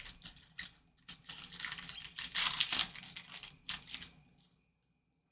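A trading card pack's wrapper being torn open and crinkled, in a rapid run of crackling rustles that stops about four seconds in.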